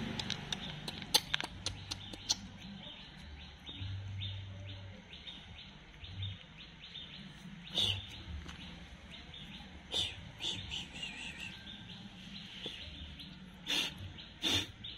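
Small birds chirping over and over, with several sharp knocks scattered through.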